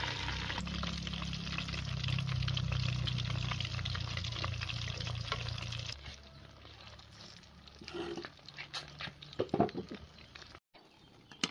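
Food frying in a pan, sizzling with fine crackles as it browns. After about six seconds the sizzle drops away, leaving a few short, fainter sounds.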